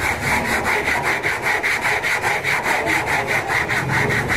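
Hand sanding of body filler on a van's steel body panel: sandpaper rubbed back and forth in quick, even strokes, about five a second.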